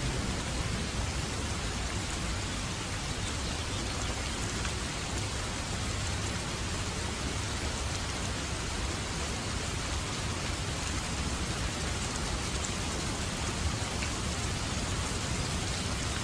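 Steady rain: an even, unbroken hiss of falling drops.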